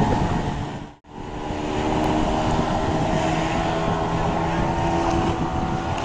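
Small outboard motor on a mini speedboat running steadily at full throttle, with a hiss of water and wind over it. The sound fades out briefly about a second in, then the engine comes back steady.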